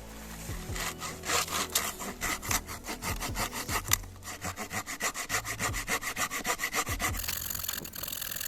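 Parkside garden hand saw cutting through a thick branch, up to about 6 cm, in quick back-and-forth strokes. It starts about half a second in, pauses briefly about halfway, then runs with faster strokes.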